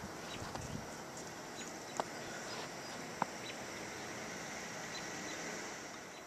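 Quiet outdoor ambience in snowy woods: a steady faint hiss broken by two sharp clicks, about two and three seconds in.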